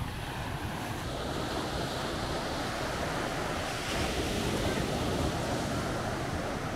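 Small waves breaking and washing up a sandy beach in a steady rush of surf, with wind buffeting the microphone; the surf grows a little louder about four seconds in.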